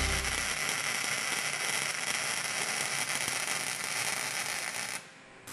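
MIG welding arc crackling and hissing steadily, cutting off sharply about five seconds in. The tail of background music fades out in the first half second.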